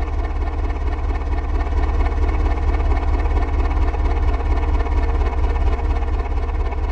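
Diesel engine running steadily, with a fast, even low throb.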